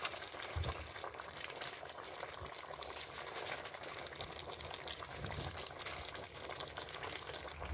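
Vegetable stew bubbling and sizzling in a cast-iron potjie pot over a wood fire, a steady fine crackle, with a couple of soft low bumps.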